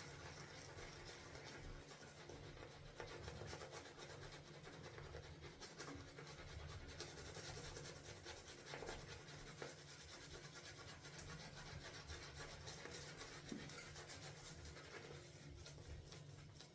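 Shaving brush swirling and whipping soap lather, a soft, quick, continuous wet rubbing.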